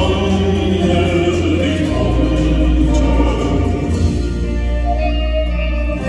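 Live performance of a German folk and hiking-song medley: a male lead voice with female backing singers, over a band of piano, acoustic guitar and keyboard with a strong, steady bass.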